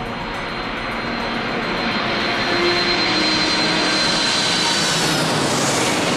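Jet engines of an approaching twin-engine airliner on landing approach, gear down. The noise grows with a steady high whine and swells, loudest about five to six seconds in.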